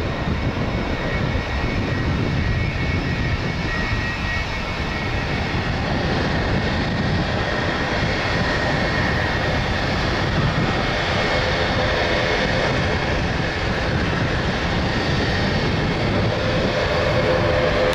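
Boeing 767-300 twin-jet airliner departing at takeoff power and climbing out: a loud, steady jet noise. A high whine comes through in the second half.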